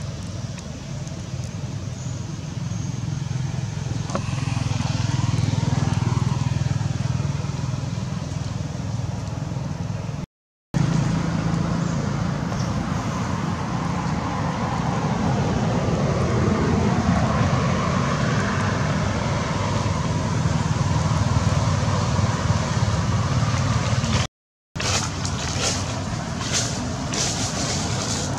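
Steady low rumble of nearby road traffic, with vehicles passing. The sound cuts out abruptly twice, and a few short clicks come near the end.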